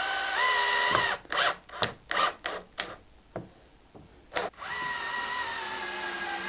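Cordless drill-driver driving screws into MDF strips. One run of about a second, then a few short sharp sounds, then a longer run of about two seconds whose pitch sinks slightly as the screw draws in.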